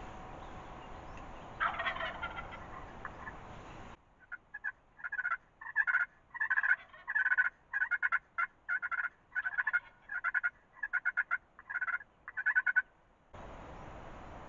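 Wild turkey calling: a gobble about two seconds in, then a long series of loud, evenly repeated calls, about two a second, lasting some nine seconds.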